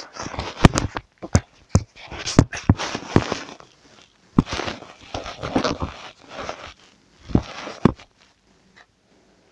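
Plastic wrapper of a sticker packet crinkling and rustling in a child's hands as it is opened, with sharp crackles and taps throughout; it dies down about eight seconds in.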